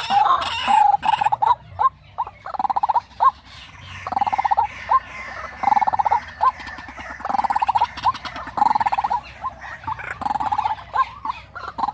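Captive male white-breasted waterhens kept as decoy birds, calling: repeated bouts of fast, rattling pulsed notes about every second and a half, with short rising notes in between.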